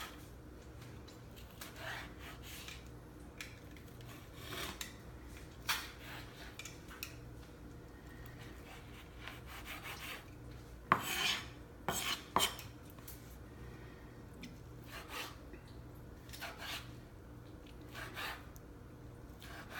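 Metal kitchen utensils clinking and scraping against pans and dishes in scattered, irregular clatters, with two louder knocks a little past halfway, over a steady low hum.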